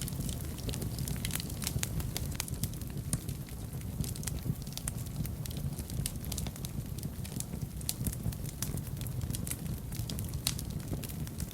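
Wood fire burning in a fireplace: a steady low rumble of the flames with many sharp, irregular crackles and pops.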